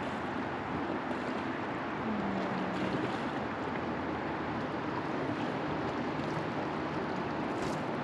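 Steady rush of river water flowing around a floating raft.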